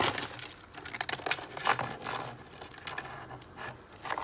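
A hand rummaging through a cardboard box of loose costume jewelry: beads, chains and metal pieces clicking and rattling against each other in irregular clatters, loudest at the start and again a little under two seconds in.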